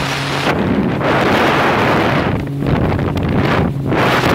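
Wind buffeting the microphone in gusts on a moving motorboat, over the steady low hum of its engine and water rushing past the hull.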